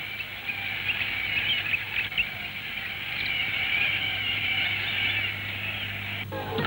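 A large flock of white cockatoos calling, a dense, continuous chatter of high squawks. Music comes in near the end.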